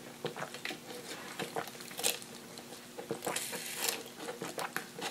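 Drinking a fountain drink through a straw from a paper cup: quiet sips with small irregular clicks, and a few brief louder hissing sucks about two seconds in and again around three to four seconds.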